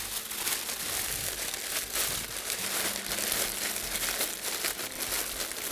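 Aluminium foil lined with baking paper crinkling and crackling as it is folded and crimped shut into a parcel around fish and vegetables, a continuous run of rustles.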